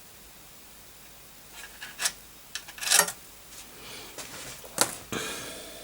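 Short scraping and rubbing strokes of a hand tool against hard surfaces, starting about a second and a half in, with sharper scrapes near two, three and five seconds in.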